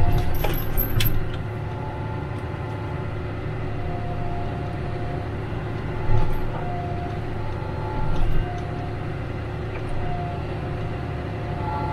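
John Deere tractor engine running steadily as the tractor drives along a snow-covered trail, with a few louder knocks and rattles around the start and about six and eight seconds in.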